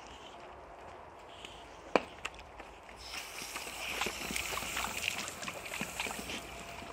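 Water hissing and splashing from a garden hose spray nozzle as two boxer dogs bite and lap at the spray. It starts about three seconds in, after a quieter stretch with a sharp click.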